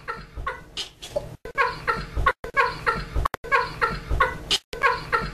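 A man laughing hard in high-pitched, breathy bursts, about three a second.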